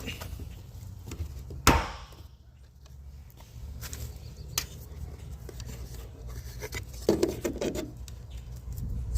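Handling knocks, clicks and rubbing as pipe thread tape is put on the threads of an IBC tote's outlet fitting, with one sharp knock a little under two seconds in.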